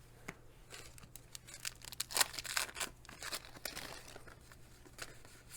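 Baseball trading cards and pack wrappers being handled: paper and card stock rustling, crinkling and scraping in a quick irregular series of short bursts, busiest around two seconds in.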